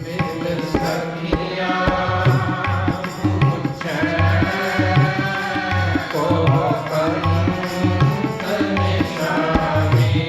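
Sikh kirtan: a man singing a Gurbani hymn over sustained harmonium, with a tabla or jori keeping a steady beat of deep drum strokes.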